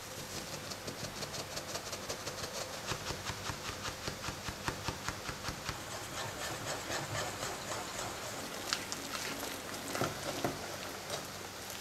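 Flour sifted through a stainless mesh sieve, then a wire whisk working flour and eggs into crepe batter in a glass bowl: quick rhythmic scraping and clicking strokes, several a second.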